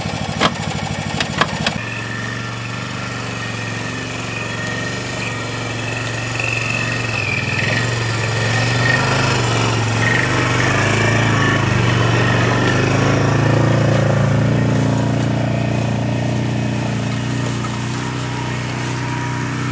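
Four-wheeler (ATV) engine running under load as it drives out of a ditch carrying a deer. It gets louder about six seconds in and eases off near the end, with a few knocks in the first two seconds.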